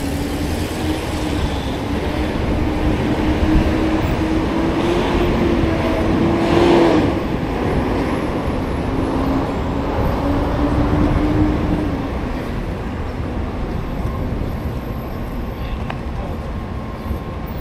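City street traffic: a steady hum from a nearby motor vehicle's engine, dropping in pitch about seven seconds in. A short loud whoosh comes at the same moment.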